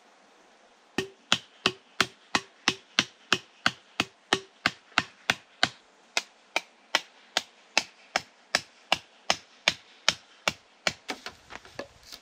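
Steady blows of a hand tool on wood, about three a second, each a sharp crack with a short ring. Near the end the blows come quicker and lighter.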